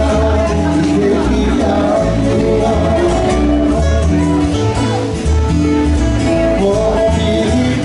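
Live Hawaiian music from acoustic guitars, amplified through a PA, with a steady beat and changing deep bass notes.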